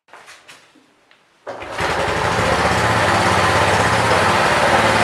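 A few faint clicks, then a small motorcycle engine starts about a second and a half in and runs steadily with an even pulsing beat.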